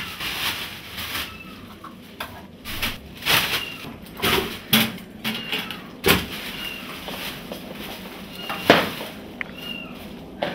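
Plastic bin bag and clothes rustling and crumpling as they are handled, in uneven bursts, with a cat meowing in short calls several times.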